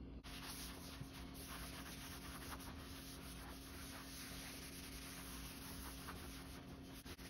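A cloth rag rubbing beeswax into the surface of a black walnut cutting board: a faint, steady scrubbing hiss that starts suddenly just after the start.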